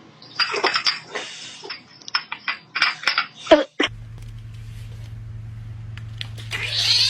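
A quick run of clattering clicks and knocks from small hard objects. Then a steady low hum, and near the end a cat starts a long meow.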